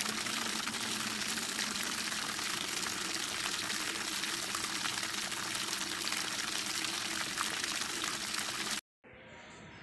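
Steady rush of splashing, bubbling water that cuts off abruptly near the end, leaving only a faint background.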